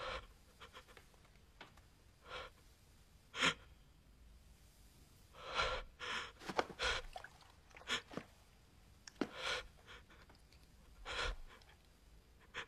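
A person's ragged, gasping breaths in irregular bursts a second or two apart: a grieving person sobbing.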